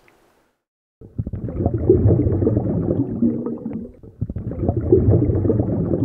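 A low, muffled gurgling rumble that starts about a second in and swells twice, about three seconds apart.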